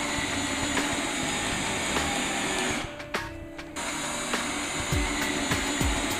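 Power drill running as it drives long coarse-thread screws into a ceiling joist. It stops briefly about three seconds in, then starts again, with background music under it.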